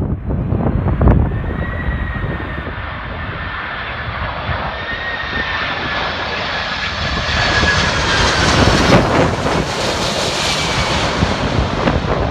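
Jet airliner on landing approach flying past low, its engines' steady whine over a rushing noise that grows louder to a peak about nine to ten seconds in.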